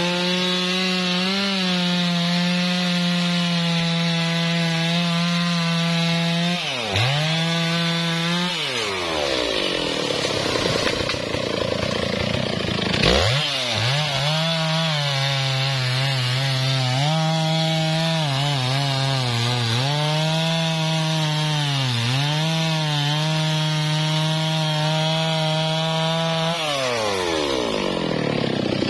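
Stihl MS660 two-stroke chainsaw cutting a teak log at full throttle, its pitch sagging and recovering under load. It drops back to idle about a third of the way through, revs up again about halfway for a second long cut, and falls to idle near the end.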